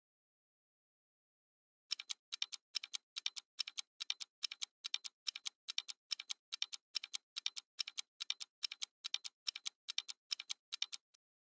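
Countdown timer sound effect: a clock ticking steadily in quick tick-tock pairs, a little over two pairs a second, starting about two seconds in after a short silence.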